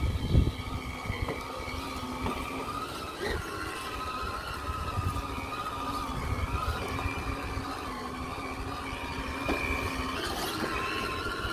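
Element RC Enduro crawler's Hobbywing Fusion brushless motor and gear drivetrain whining at low crawling speed, the pitch wavering slightly with throttle, over low, uneven crackling and knocks from the truck working over the ground.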